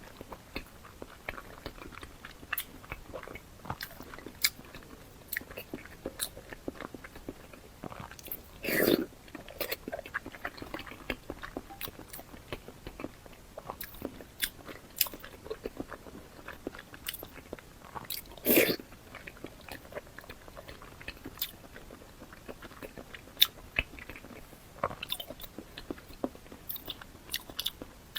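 A person chewing and biting food close to the microphone: a steady run of small wet mouth clicks, with two louder bites about a third and two thirds of the way through.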